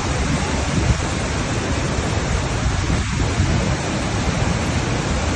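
Massive waterfall, the Devil's Throat of Iguazu Falls, pouring into its gorge: a loud, steady, unbroken rush of falling water.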